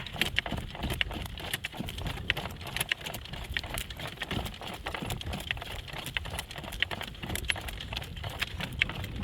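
Hoofbeats of a driving horse pulling a cart: a steady run of clip-clopping strikes over a low rumble, with jingling and rattling from the harness and cart.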